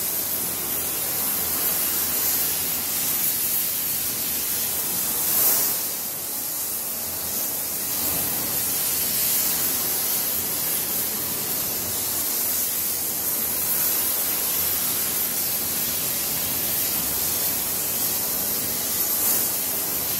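Gas torch flame hissing steadily as it is passed along an aluminum flat bar to heat it, briefly louder about five and a half seconds in.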